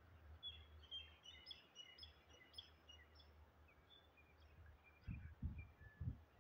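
Faint birds chirping, many short high chirps in quick succession that thin out after about four seconds, over a low background hum. Near the end come a few low thumps.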